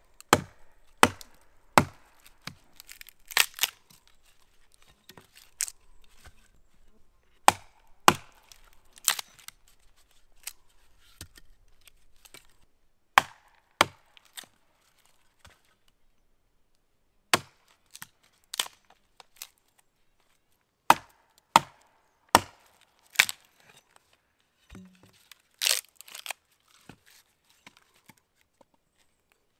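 Hatchet chopping and splitting small rounds of firewood into kindling against a log: sharp, irregular wooden knocks, often one or two a second, with a few short pauses.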